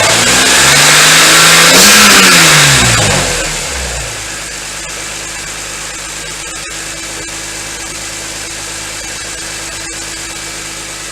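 BMW E46 M3's S54 straight-six engine revved once, rising for about two seconds and dropping back, then settling to a steady idle.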